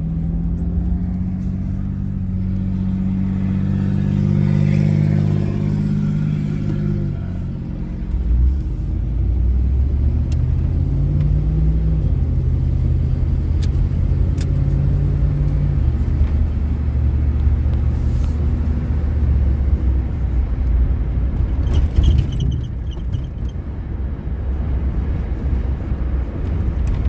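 1998 Chevy C1500 pickup driving, its engine running steadily under road rumble. The engine note drops about seven seconds in, climbs a little a few seconds later, then settles into steady cruising.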